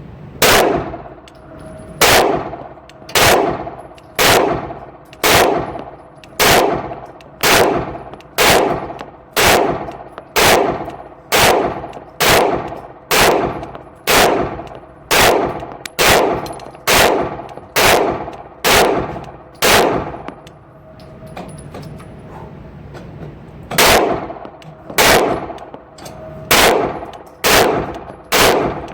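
Springfield XD subcompact 9mm pistol fired in a steady string of about twenty shots, roughly one a second, each with a short ringing echo. After a pause of about four seconds, six or seven more shots follow at a quicker pace.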